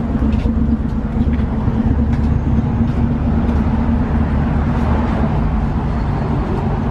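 Pickup truck's engine running with a deep, steady rumble.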